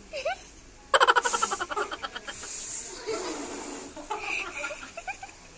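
Girls laughing: a sudden burst of rapid, pulsing laughter about a second in, followed by quieter scattered giggles.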